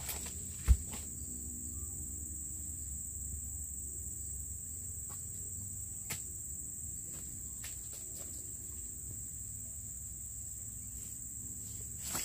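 Steady high-pitched insect chorus, with one dull thud about a second in and a few faint knocks later.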